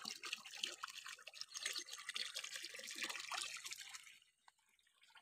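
Irrigation water trickling and splashing as it runs into the beds of an alfalfa field, a busy patter of small drips and gurgles that stops about four seconds in.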